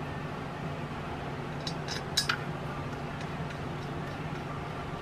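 A few light metallic clinks close together about two seconds in: head bolts being set into the cylinder head of a Kohler single-cylinder engine. Under them runs a steady low hum.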